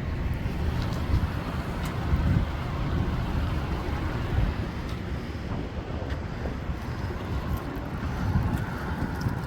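Road traffic passing, with wind rumbling on the microphone.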